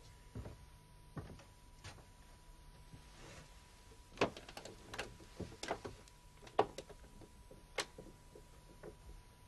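Footsteps, a few steps at walking pace, then a run of sharp knocks and clicks as a man sits down at a table set with dishes and glasses.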